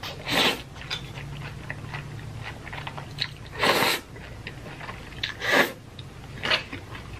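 A person eating noodles: several short, noisy slurps of noodles with wet chewing in between.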